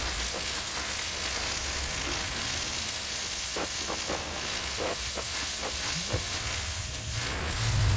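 Pressure washer jet spraying steadily, blasting thick moss off a garage roof, a constant hiss over a low rumble.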